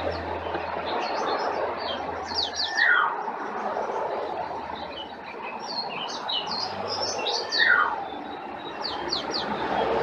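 Small songbirds chirping and trilling in quick high notes over a steady rushing background. Two louder calls slide downward in pitch, about three seconds in and again at about seven and a half seconds.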